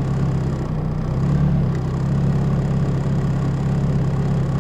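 Rally car's engine idling steadily, heard from inside the cabin.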